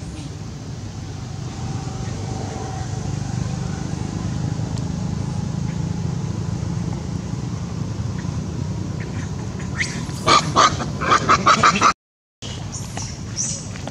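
A steady low rumble, then about ten seconds in a quick run of about eight short, loud animal calls, cut off suddenly.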